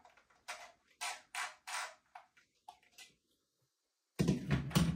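Handling noise of plastic drone remote controllers on a tabletop: a string of short clicks and knocks, a pause, then a louder knock and rubbing as one is picked up near the end.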